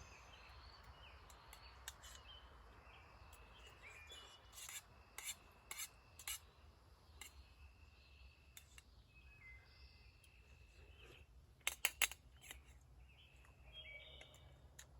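Spoon clinking and scraping against a dish while eating. There are a few separate clinks about five to six seconds in, and a quick run of louder clinks near twelve seconds. Songbirds chirp faintly in the background.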